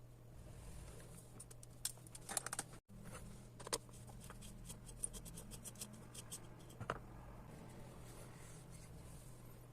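Scattered light clicks, taps and scrapes of small parts and tools being handled on the opened-up iron, over a faint steady hum.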